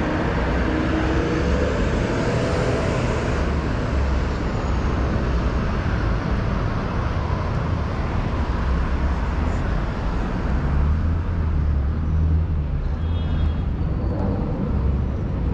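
Steady city street traffic: car and bus engines and tyres passing on a wide avenue, with a low engine rumble that swells and fades.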